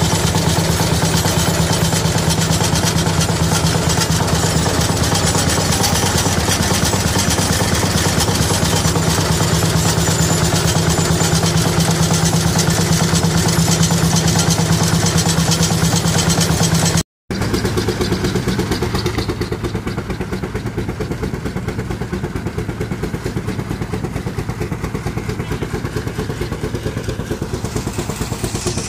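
A.D. Baker steam traction engine running under load, belted to a threshing machine: a steady fast mechanical beat with a strong low hum and clatter from the thresher. It breaks off for an instant about two-thirds of the way through, then goes on a little quieter.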